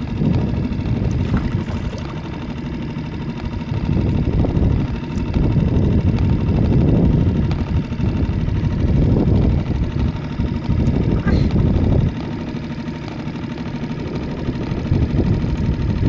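Fishing boat's engine running, a low rumble that swells for several seconds midway and then eases back.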